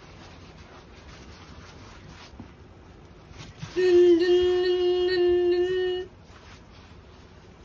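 A child's voice singing one long, nearly steady note for about two seconds, starting about four seconds in.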